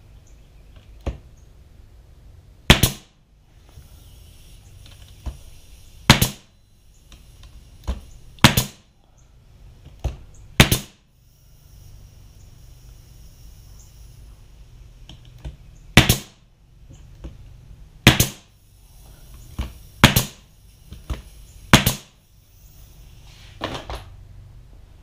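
Pneumatic brad nailer firing brads into wooden boards: about eight sharp shots spaced irregularly a second or more apart, with a few fainter clicks between.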